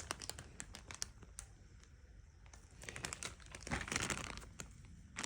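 Faint rustling and scattered light clicks of handling, busiest a little past the middle.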